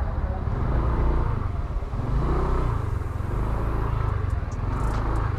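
Honda Click 125i scooter's single-cylinder engine running under a ride, with a heavy low wind rumble on the microphone and a few faint clicks near the end.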